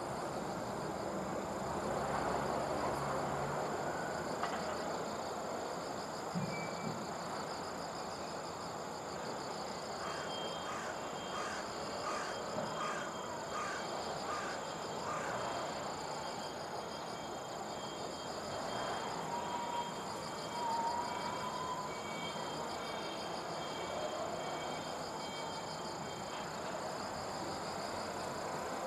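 Insects, crickets among them, trilling steadily in high-pitched tones over a low, even background noise. About ten seconds in, a rhythmic chirping joins for a few seconds.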